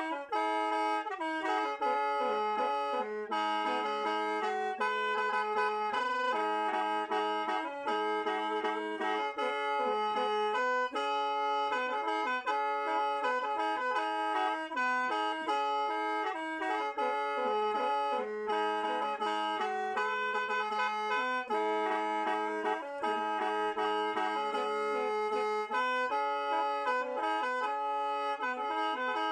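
Khaen, the Lao bamboo free-reed mouth organ, played solo: several reed notes sound together, a low drone held for long stretches under quick-changing melody notes.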